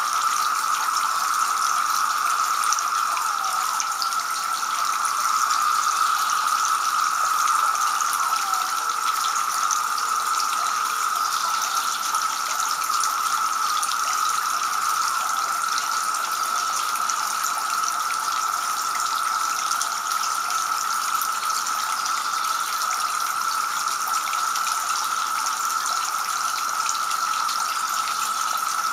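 Two-tier garden fountain running, with water spilling from the upper bowl and splashing steadily into the basin below.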